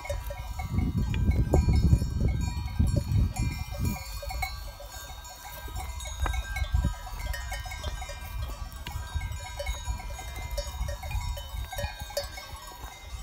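Bells on a grazing flock of sheep clinking and ringing steadily, many small bells at once. A low rumble sits under them for the first four seconds or so.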